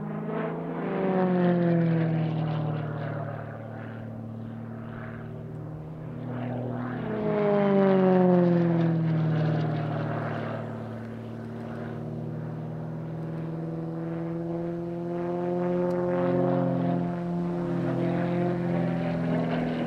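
Extra 300L aerobatic plane's six-cylinder Lycoming engine and propeller running through aerobatic manoeuvres. The sound swells and fades in loudness, and its pitch slides down twice, about a second in and again around seven seconds in.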